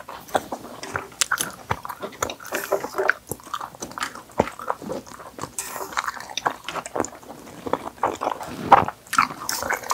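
Close-miked eating sounds: two people chewing and biting into sauced fried chicken and black-bean noodles, a run of irregular short wet clicks.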